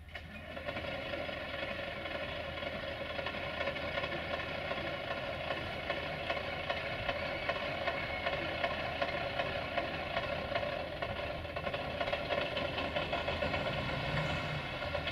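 Diesel engine of a UAM215-MB track maintenance draisine starting up: it comes in suddenly, builds over about a second, then runs steadily.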